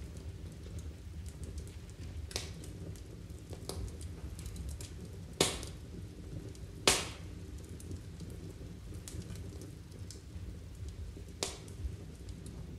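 Steady low hum with scattered faint ticks and two sharper clicks, about five and seven seconds in.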